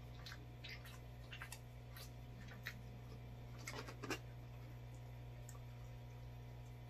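Faint scattered clicks and light taps, the loudest about four seconds in as pizza crust is picked up from a cardboard pizza box, over a steady low hum.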